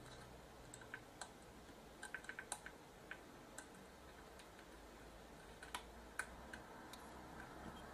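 Faint, irregular small metallic clicks and ticks of a jeweler's screwdriver tip and a soldering-iron tip against the leg of a surface-mount regulator being pried up from molten solder, bunched about two seconds in and again around six seconds in.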